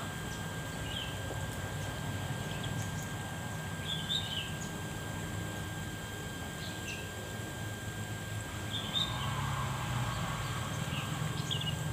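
A small bird chirping now and then, a handful of short high chirps spread over several seconds, over a steady low outdoor background murmur.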